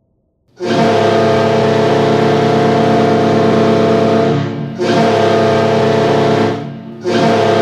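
Hockey arena goal horn of the Carolina Hurricanes blowing a loud, steady multi-note chord, heard dry without added reverb. It starts about half a second in and sounds in three blasts: a long one, a shorter one, and a third that begins near the end.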